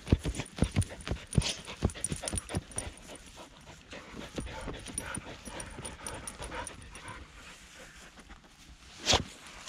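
American Staffordshire Terrier panting, with a quick run of irregular thumps over the first three seconds and a single loud knock near the end.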